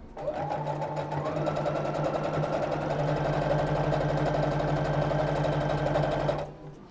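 Electric sewing machine stitching a long basting seam: it starts up, picks up speed about a second in, runs at a steady fast rate, then stops near the end.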